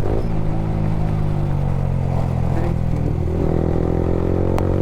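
Yamaha R15 V3's 155 cc single-cylinder engine running through an Akrapovic R9 aftermarket exhaust while the bike is ridden. The note dips right at the start and eases down slightly, then from about three seconds in it climbs steadily as the bike accelerates.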